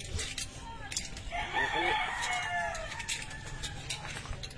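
A rooster crowing once, one long call of about a second and a half that falls away at the end. Sharp clicks of scallop shells being pried open with knives come and go.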